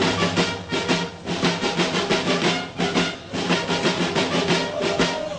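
Military band playing: quick, regular drumbeats from snare and field drums under a melody of sustained notes.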